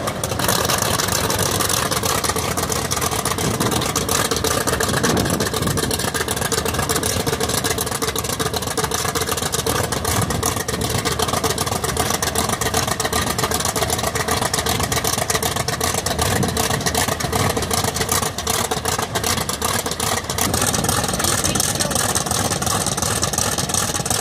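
Grumman F8F Bearcat's Pratt & Whitney R-2800 radial engine idling just after a cold start, propeller turning. A steady, loud run of rapid exhaust pulses that holds without a break.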